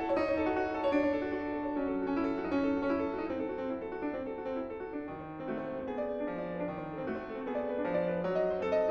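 Solo piano playing classical music: a steady flow of quick notes over longer, held bass notes.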